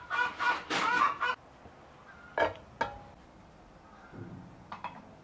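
A bird calling loudly in a quick run of short calls that stops about a second and a half in. Two sharp clicks follow a little after two seconds, and two fainter ones near the end.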